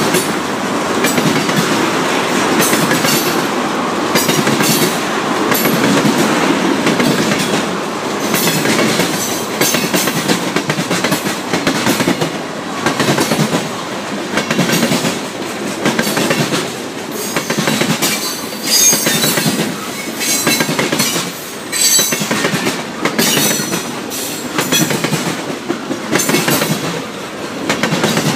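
Freight cars of a long manifest train (tank cars, covered hoppers, gondolas, boxcars) rolling past: a steady rumble with irregular clicks of wheels over rail joints, and brief high wheel squeals in the second half.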